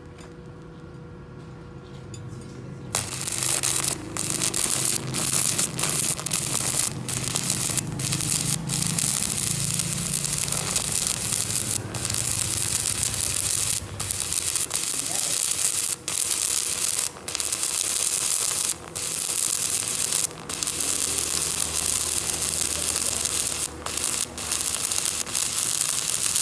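Stick (shielded metal arc) welding: the electrode's arc strikes about three seconds in, then crackles and sizzles steadily, with many short breaks where the arc momentarily drops out.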